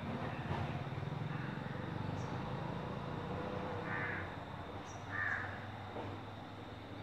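Two short, harsh bird calls, like caws, about a second apart, over a low steady rumble.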